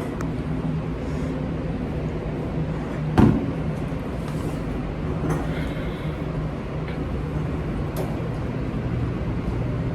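Steady low machine hum in a work kitchen, with one loud knock about three seconds in and a few lighter clicks.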